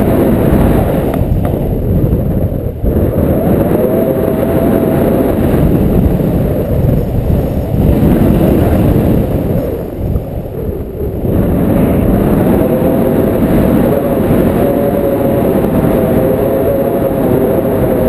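Airflow buffeting the microphone of a camera held out in flight under a tandem paraglider: a loud, steady rumble with a faint wavering tone in it, easing briefly about ten seconds in.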